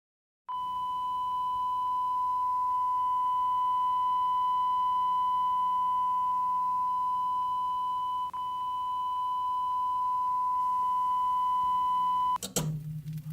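A steady single-pitched electronic tone, a broadcast-style test tone, held for about twelve seconds with a brief dip about eight seconds in. It cuts off suddenly near the end with a click, leaving a low hum that fades.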